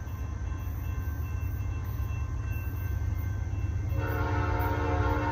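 Distant approaching train: a low rumble that grows slowly louder, then the locomotive's air horn sounds about four seconds in, a chord of several steady tones.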